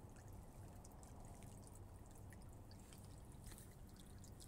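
Faint, steady trickle of water from a garden hose left running into a tree's mulched planter bed.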